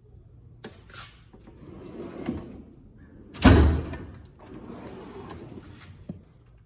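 ICON steel tool box drawers sliding open and shut, with clicks and a loud thud about three and a half seconds in as a drawer closes.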